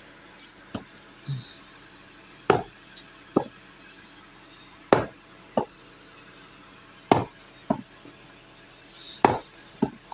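Repeated heavy knocking blows in pairs: a loud strike, then a lighter one about half a second later, repeating roughly every two seconds.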